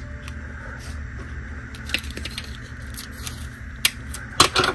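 Light handling clicks and crinkles from a plastic water bottle and a clear tape dispenser being handled, with a short cluster of louder clicks near the end, over a steady low hum.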